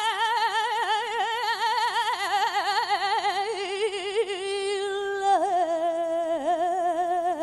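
A woman's voice singing copla, holding one long high note with wide vibrato that steps down in pitch a couple of times in the second half.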